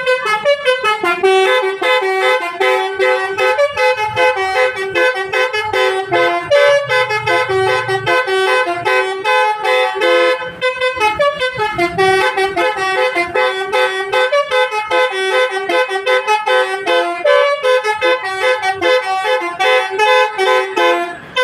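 An Indonesian bus's telolet basuri multi-tone horn plays a quick melody. Short pitched notes follow one another without a break.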